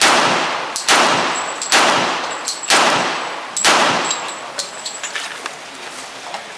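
Glock 21 .45 ACP pistol fired five times at a steady pace, about one shot a second, each shot with a long echoing tail. A few light clicks and short metallic pings follow the last shot.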